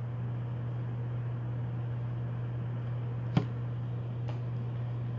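Steady low hum with a faint hiss, and a sharp click about three and a half seconds in, with a fainter one about a second later, as rigid plastic card holders are handled.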